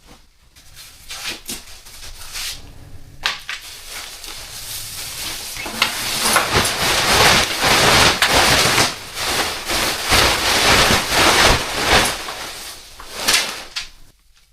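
Water running and splashing hard, swelling a few seconds in and cutting off suddenly near the end, as gear and clothes are washed.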